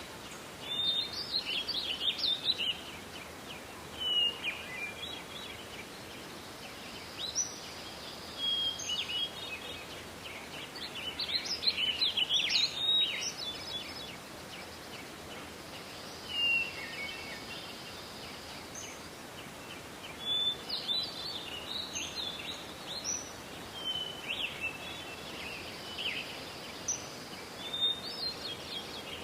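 Songbirds singing in a forest: short phrases of chirps and trills every few seconds over a steady hiss of forest ambience.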